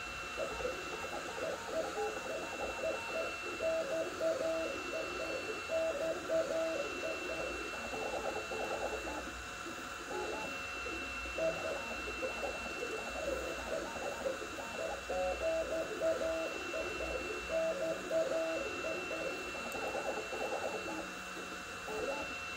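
Stepper motors of a Sapphire Plus CoreXY 3D printer singing as the print head moves at 130 mm/s, in short tones that jump in pitch with each move, over a steady high whine.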